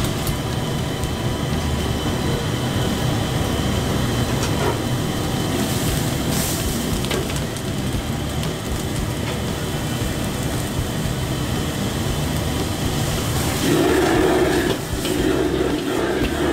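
Commercial gas wok burner running with a steady rumble, under food sizzling in the wok and a metal ladle knocking and scraping against it. Near the end the burner grows louder as the flame is turned up.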